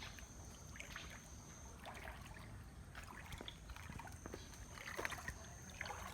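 Swollen river after heavy rain flowing, a faint steady low rush of water, with scattered small faint sounds and a thin high steady tone that comes and goes.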